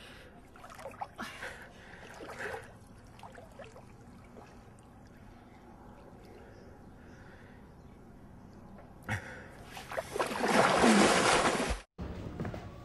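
Water lapping and sloshing with faint gasping breaths, then about nine seconds in a loud rush of splashing water that cuts off abruptly.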